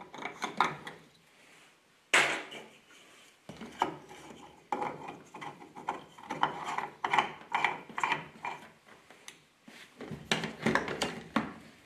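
A car's locking fuel filler cap being unscrewed and pulled out of the filler neck. Irregular plastic clicks and rubbing, with a sharper knock about two seconds in.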